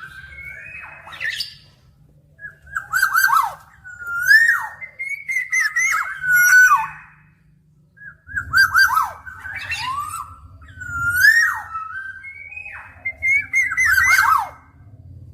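Black-naped oriole singing: fluted, liquid whistled phrases that slide up and down, mixed with harsher grating notes. The bird sings in two bursts with a short pause between them.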